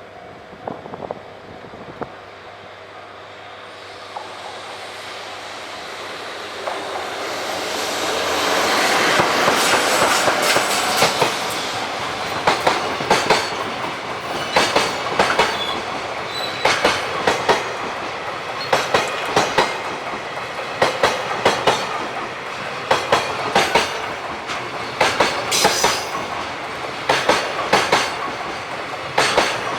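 EF66 electric locomotive hauling a freight train past, its running noise growing to a peak about ten seconds in. The freight wagons follow, their wheels clicking over the rail joints in a steady clickety-clack of repeated pairs.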